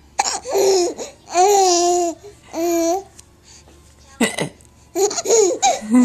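High-pitched laughter in several drawn-out peals, with a short, sharp hiccup about four seconds in from someone who has the hiccups.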